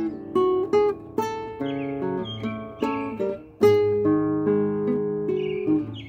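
Classical nylon-string guitar played fingerstyle: a slow melody of plucked, ringing notes over bass notes. A bird sings short falling phrases in the background, about two seconds in and again near the end.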